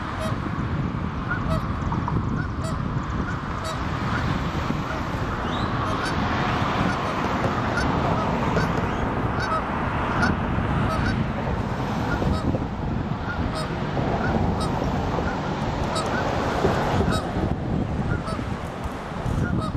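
Canada geese honking repeatedly, short calls coming about every second, over a steady low background noise.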